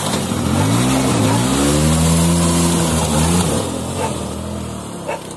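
Vintage scooter's small two-stroke engine revving as it pulls away: the pitch climbs twice in the first second or so, holds steady, then drops and fades as the scooter rides off.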